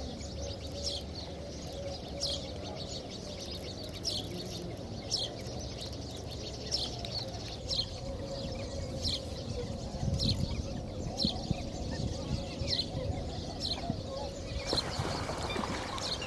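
A small bird chirping over and over, short high notes that drop in pitch, about one a second, over a faint steady hum.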